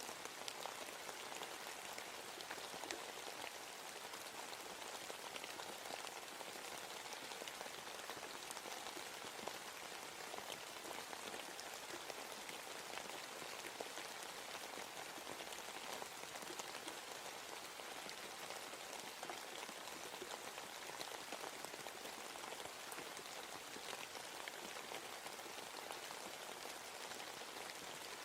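Steady rain falling in a forest, a dense patter of drops on leaves and the ground.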